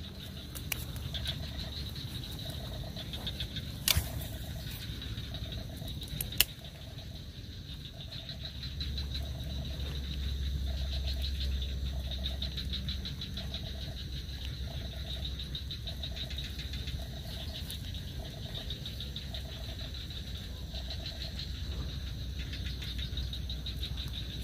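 A frog calling in short pulsed croaks, repeated about every three-quarters of a second, over a steady high chorus of insects. Two sharp clicks in the first seven seconds.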